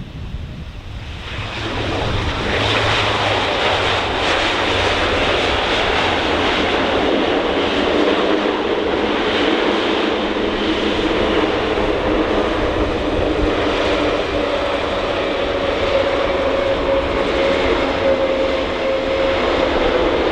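Airbus A400M's four TP400 turboprop engines, loud, surging up about a second and a half in and then holding steady with a droning hum. This is the propellers pushed into reverse pitch to brake on a short landing.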